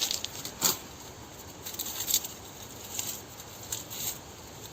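Dry birch bark being handled, giving irregular light crackles and rustles, the sharpest about two-thirds of a second and two seconds in.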